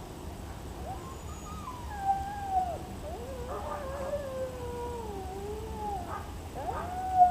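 An animal's long, drawn-out whining cries, sliding up and down in pitch, starting about a second in and following one another to the end.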